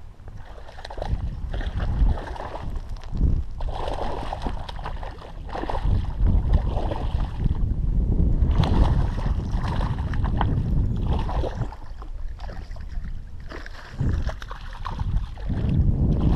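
Wind buffeting the microphone, a low rumbling noise that swells and drops in gusts, with a few short knocks.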